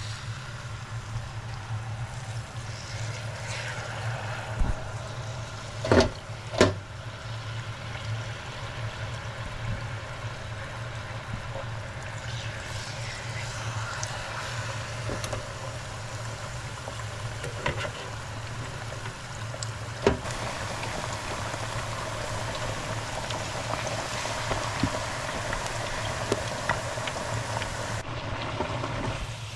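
Battered potato slices deep-frying in oil at 175 °C in a fryer basket: steady bubbling and sizzling over a low hum. A few sharp knocks cut through it, two close together about six seconds in and one about twenty seconds in.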